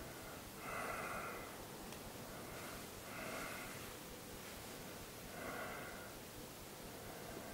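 Slow breathing of a man lying deeply relaxed under hypnosis: three breaths about two and a half seconds apart, over faint room hiss.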